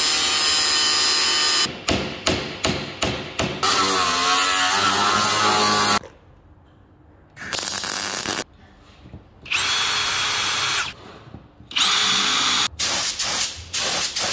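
Angle grinder cutting steel: one long run, then a string of short bursts, then another long run, with the pitch wavering under load. After a short quiet gap come several shorter bursts of welding and of a paint spray gun hissing.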